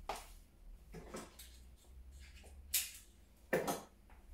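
Flower stems, foliage and branches being handled and set into an arrangement: a few short rustles and clicks, the loudest near the end, over a low steady hum.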